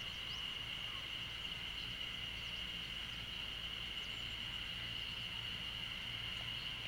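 Insects droning steadily at one high pitch, unbroken throughout, over a faint low outdoor rumble.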